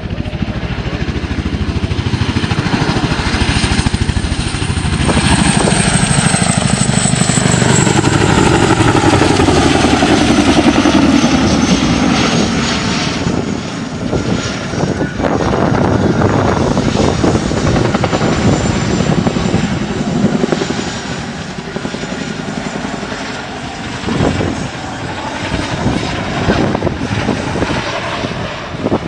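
Display aircraft flying past overhead: a loud engine sound with a high whine. Its pitch slides down as it goes by, and the sound eases off somewhat after the pass.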